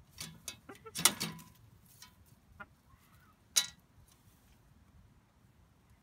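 Hens pecking at grain in a galvanised steel treadle feeder: a quick run of sharp taps and clicks in the first second and a half, then one loud single tap a little past halfway.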